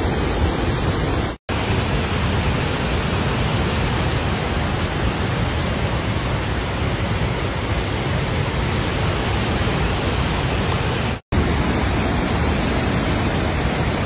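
Large waterfall: a loud, steady rush of falling water, broken by two momentary dropouts, one about a second and a half in and one about three seconds before the end.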